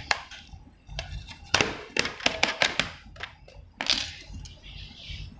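Plastic mouse tub being handled and its lid taken off: a run of sharp plastic clicks and knocks, thickest from about a second and a half to four seconds in.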